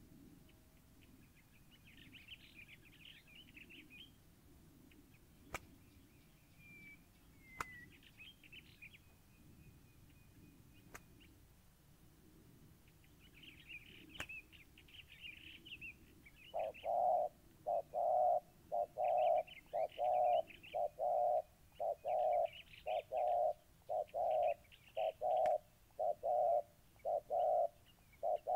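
Spotted doves cooing: from a little past halfway, a fast, regular run of short low coos, about one and a half a second, the loudest sound here. This is the cooing of a cock squaring up to a rival at a decoy cage. Small birds chirp on and off, and there are a few sharp clicks.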